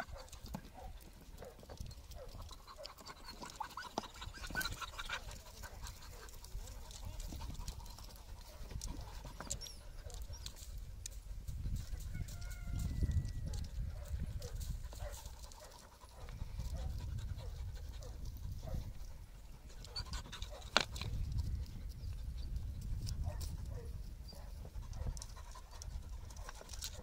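Podenco canario hounds panting and sniffing as they work their noses into a rock pile, with faint scuffs and clicks over a low rumble that swells and fades. One sharp click stands out about three-quarters of the way through.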